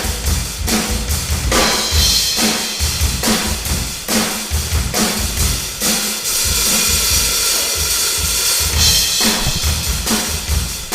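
Drum kit played hard in a drum battle: bass drum and snare hits in a driving beat, with a few seconds of steady cymbal wash in the middle.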